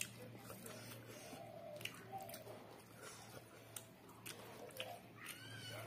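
Close-up eating sounds: chewing with sharp wet mouth clicks and smacks, and the soft squish of rice and chicken curry being mixed by hand.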